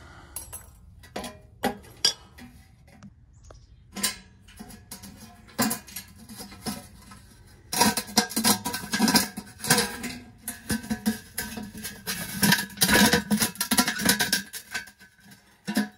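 Metal clinking and rattling as a stove-pipe damper and its steel rod are fitted into a thin galvanized steel pipe section. Scattered knocks at first, then a dense run of clatter from about halfway until just before the end.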